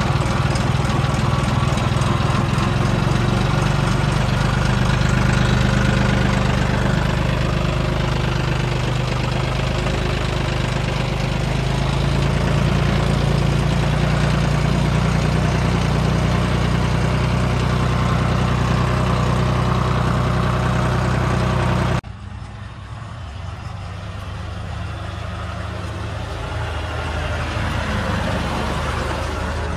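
John Deere 5310 tractor's three-cylinder diesel engine running steadily, heard close up from the hood. About two-thirds of the way in, the sound cuts to the same engine heard quieter and farther off, growing louder near the end.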